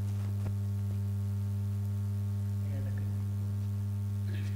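Steady low electrical hum, a constant drone made of two strong low tones with fainter higher overtones. A few faint brief sounds come through about three seconds in.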